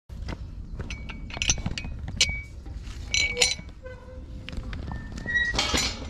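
Footsteps and rustling through dry undergrowth, with sharp twig snaps and a burst of brushing near the end. Short bird chirps and brief whistled notes sound over a low, steady rumble.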